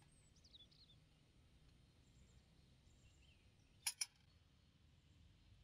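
Near silence, broken about four seconds in by two sharp clicks in quick succession from the metal parts of a dismantled oil lighter being handled.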